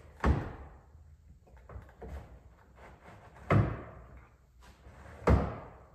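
Loud clunks from a BMW 325 convertible's soft top being latched shut after closing. There are three heavy thumps, about a third of a second in, at three and a half seconds and near the end, with a softer knock around two seconds, each dying away quickly.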